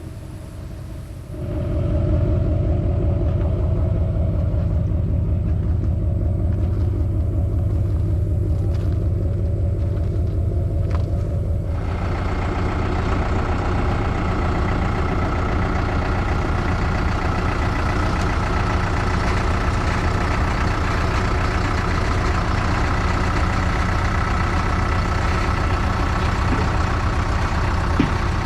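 A heavy vehicle's engine running steadily, coming in about a second and a half in. From about twelve seconds in, a broad rushing noise joins it and the sound gets fuller.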